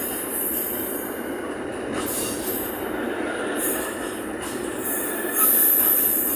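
Container freight train's flat wagons rolling past on the rails with a steady rumble. A thin high-pitched wheel squeal rides over it, fading in the middle and coming back louder about five and a half seconds in.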